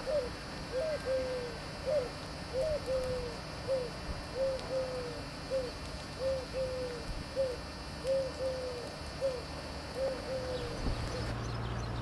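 A dove cooing over and over, low hooting coos in pairs of a short note and a longer falling one, stopping shortly before the end.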